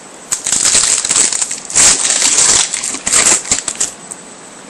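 Plastic or foil packaging crinkling and rustling in irregular bursts as trading-card packs and cards are handled, dying away about four seconds in.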